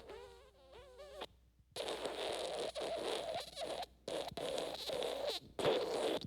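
Wet fart sound effect: a short, quieter squeaky fart with a wavering pitch, then a longer, louder wet sputtering fart that breaks into several bursts with brief pauses.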